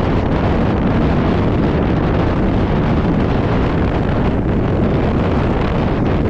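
Steady wind rush on a helmet-mounted camera's microphone during a fast mountain bike descent, mixed with the tyres rumbling over a loose gravel track.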